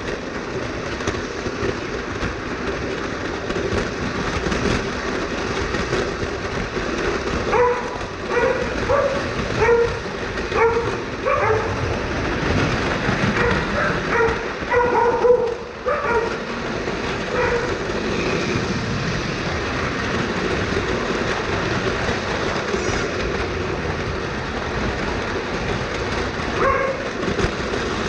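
Lionel Standard Gauge model train running along its track, a steady rumble and rattle of its wheels and motor heard close up from aboard the train. A dog barks repeatedly from about a quarter of the way in to just past the middle, and once more near the end.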